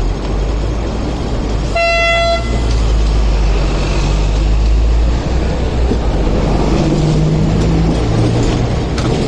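City street and tram rumble, with a double-decker tram running past close by near the end. About two seconds in, a vehicle horn gives a single short toot.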